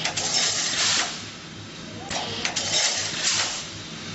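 Double-wire mesh fence welding machine running in its cycle: a burst of hissing, clattering noise comes twice, about two seconds apart, over a steady pulsing low hum.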